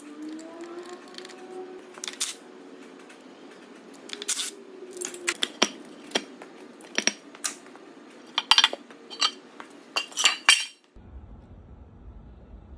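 Sharp metallic clinks and clanks of metal engine parts and tools being handled during an engine teardown. The clinks come thicker toward the end, then cut off abruptly.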